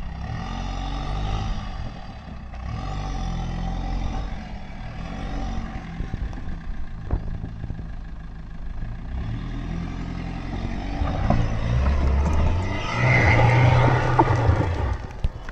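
Maruti Suzuki Brezza SUV's engine revving hard under load as it climbs a loose dirt slope, the pitch rising and falling with the throttle and loudest near the end.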